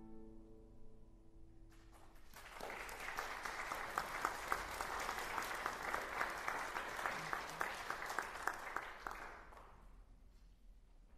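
The last guitar chord of a piece rings and dies away. About two seconds in, an audience starts applauding. The clapping goes on for several seconds and fades out near the end.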